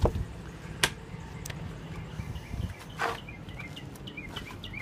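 A songbird singing in the background, a quick run of short high chirps starting about three and a half seconds in. Two sharp clicks come near the start and a brief rustle about three seconds in.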